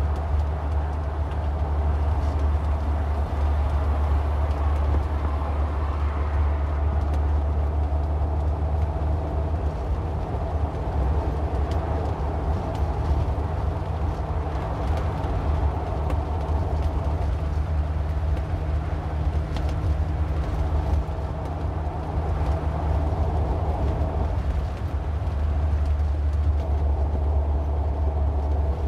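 A car driving on the road: a steady low rumble of engine and tyre noise, with a few faint ticks.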